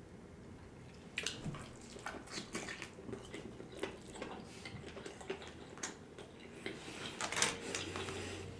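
Close-miked eating sounds: irregular small clicks and wet smacks of a utensil working through saucy food and of chewing, starting about a second in and busiest near the end.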